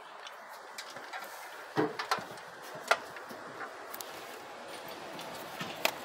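A few sharp clicks and knocks of engine parts being handled, the loudest about two and three seconds in and another near the end, over a steady low hiss.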